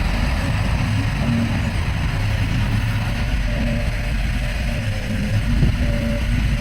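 Heavy earthmoving machine's diesel engine running steadily: a deep continuous rumble with a faint wavering whine above it.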